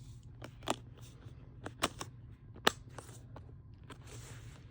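Plastic Blu-ray cases being handled: a few sharp clicks and knocks, three louder ones about a second apart, then a soft rustle near the end.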